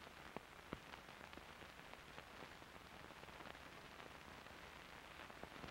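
Near silence: the faint hiss of an old film soundtrack with scattered clicks and crackles.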